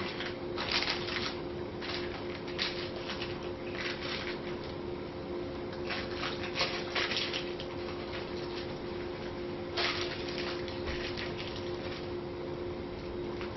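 A spatula scraping and spreading thick fudge mixture across wax paper in a dish. It comes in short, irregular strokes over a steady low hum.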